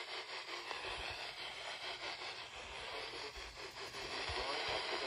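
Radio receiver hiss and static with a faint crackle between broadcasts, growing a little louder near the end.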